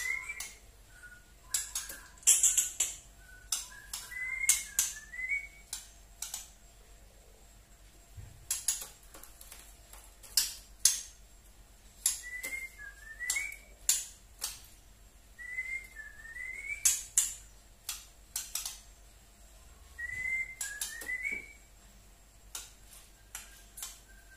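Juvenile white-rumped shama (trotol murai batu) making sharp ticking 'tretek' calls scattered through, with short groups of two or three rising whistled notes every few seconds.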